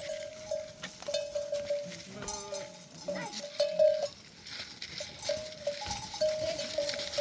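A flock of sheep and goats with bells clanking as they move, and a few bleats about two and three seconds in.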